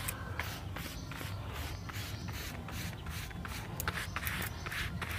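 A bare hand rubbing mustard oil over a banana leaf, in a string of short, uneven swishes as the palm slides across the leaf.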